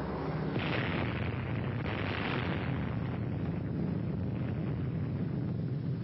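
Atomic bomb explosion: a continuous deep rumble with two hissing surges, about one second and two seconds in.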